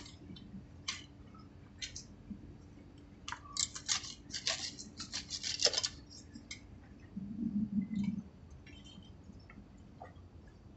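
Hand pruning shears snipping through date palm bunch stalks: a string of sharp cuts, coming fast about three to six seconds in, then a few more. A short low sound follows near eight seconds.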